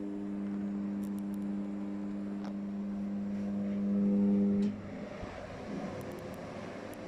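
Air conditioner running: a steady hum swells slightly, then cuts off suddenly about two-thirds of the way through, leaving a steady rush of air.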